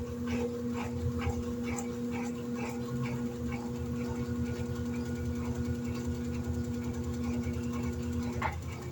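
Electrolux LED14 washing machine running mid-cycle: a steady motor hum with regular light clicks, about three a second, the hum cutting off about eight and a half seconds in.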